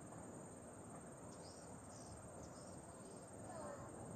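Quiet riverbank ambience: a steady high insect trill, with a few short bird chirps between about one and two and a half seconds in, over a faint low rush of flowing water.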